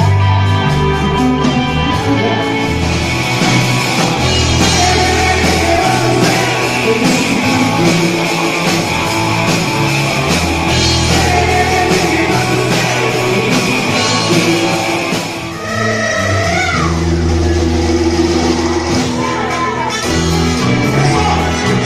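Rock band playing with singing and guitar, a steady bass line underneath; the music dips briefly about fifteen seconds in, then carries on with bending notes.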